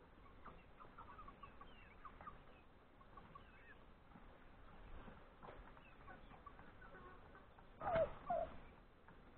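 Chickens clucking softly, with a pair of louder clucks near the end.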